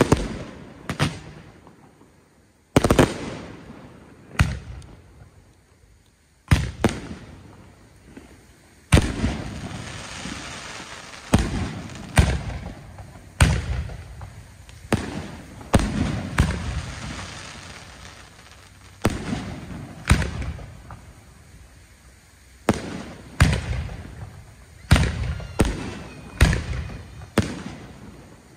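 Aerial fireworks shells bursting in a long, irregular string of sharp bangs, each trailing off in a rolling echo. The bangs come close together through the middle and sparser near the start.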